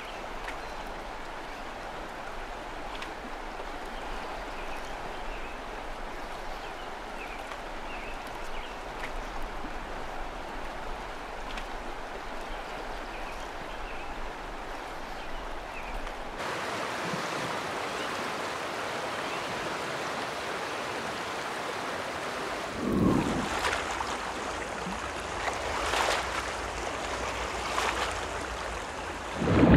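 Steady rush of a fast-flowing river running high, with faint high chirps in the first half and a couple of louder sounds near the end.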